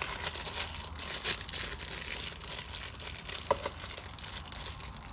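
Packaging crinkling and rustling as it is handled, with one brief sharp sound about three and a half seconds in.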